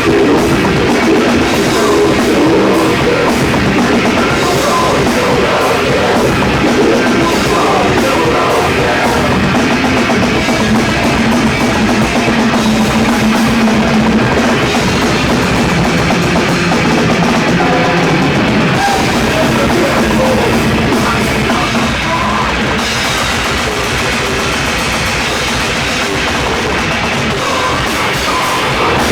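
Heavy metal band playing live: distorted guitars, bass and drum kit, loud and continuous.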